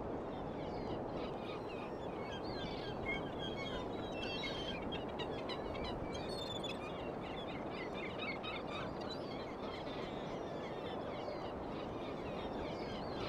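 Outdoor ambience: a steady low rushing background with many birds chirping and calling throughout.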